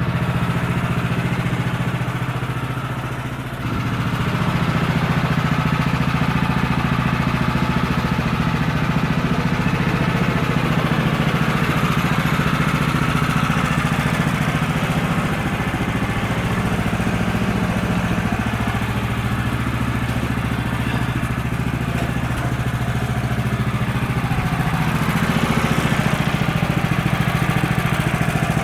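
Woodland Mills HM126 bandsaw sawmill's gas engine running steadily under load as the band blade saws through a red oak cant. The sound dips briefly about three seconds in, then picks up again and holds steady.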